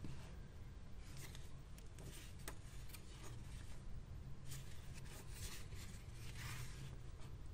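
Thick sketchbook pages being turned by hand: irregular paper rustles and flicks, with a longer run of riffling through several pages about two thirds of the way in. A steady low hum sits underneath.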